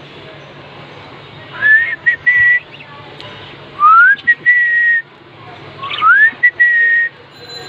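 Someone whistling the same phrase three times, about two seconds apart: each time a pure note glides upward, breaks briefly, then holds steady on a high note.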